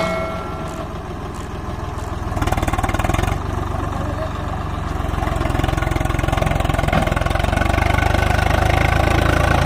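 Diesel tractor engine running, revving up at about two and a half seconds and again from about halfway, then holding high revs under heavy load as a mud-bogged, log-laden tractor is towed free.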